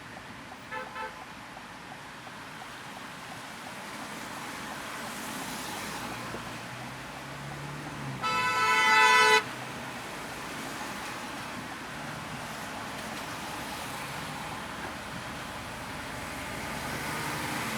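Steady road and traffic noise heard from inside a car. Two short, faint car-horn toots about a second in, then one loud horn blast lasting about a second near the middle.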